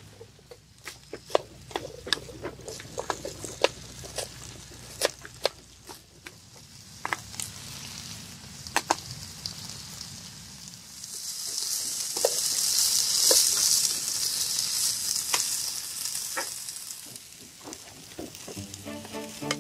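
Chicken and sliced onion sizzling as they fry in a small metal camping pan, with sharp clicks of a utensil against the pan as they are stirred. The sizzle swells about halfway through and eases off near the end.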